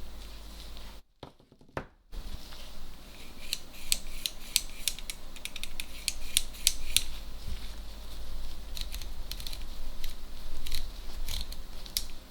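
Irregular small, sharp metallic clicks and ticks of hand tools and metal parts being handled on a vintage film camera during repair. They follow a brief gap about a second in.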